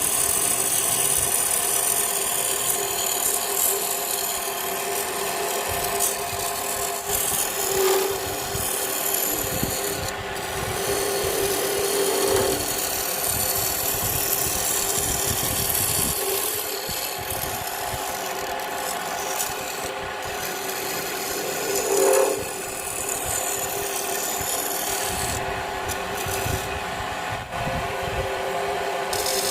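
Wood lathe running with a turning tool cutting into the spinning wood of a bowl blank. A steady motor hum sits under continuous scraping, with a few brief louder swells as the tool bites harder.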